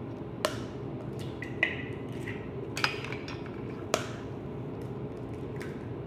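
A utensil clinking against a glass mixing bowl while eggs and sugar are beaten by hand, with about five sharp, irregular clinks.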